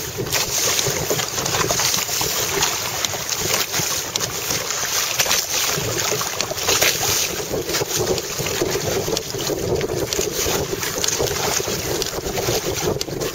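Heavy wind noise on the microphone over choppy water slapping and splashing against the hulls of a Hobie Tandem Island sailing trimaran, with frequent short splashes.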